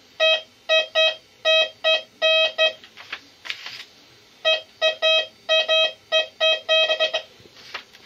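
Bounty Hunter Tracker IV metal detector beeping in discrimination mode as metal targets pass over its search coil. A run of short beeps, all at the same pitch, then a pause of about a second and a half, then a second run of beeps.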